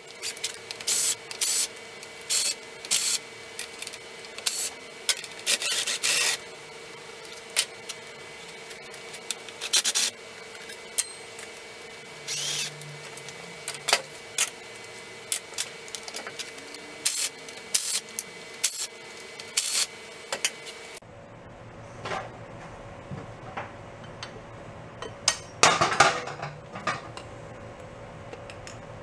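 Hands and tools taking parts off a Honda TL250's cylinder head: irregular short scrapes, clicks and knocks of metal parts being handled, with a louder cluster of scraping near the end.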